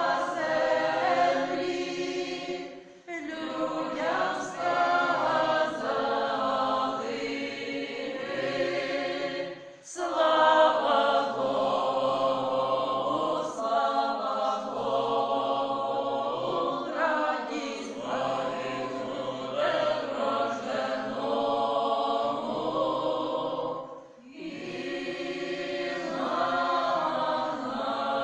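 Small mixed choir of men's and women's voices singing a Ukrainian Christmas carol (koliada) unaccompanied, in long sustained phrases with three brief breaks between them.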